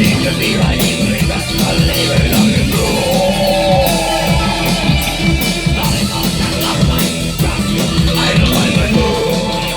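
Loud rock music with distorted electric guitar and a drum kit keeping a steady beat, and a voice singing or shouting now and then.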